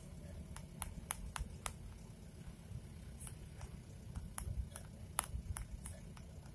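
Low, steady engine and road rumble inside the cab of a Chevy LUV 4x4 pickup on the move, with irregular sharp clicks or ticks a few times a second.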